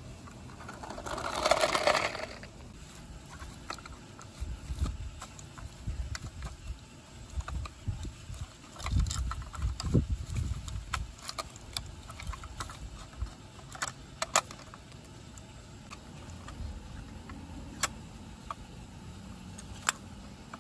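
Handling noises of a diecast Mack front-loader garbage truck model and its toy dumpster: scattered small clicks and taps of the model's parts, a brief rustle about a second in, and low bumps in the middle stretch.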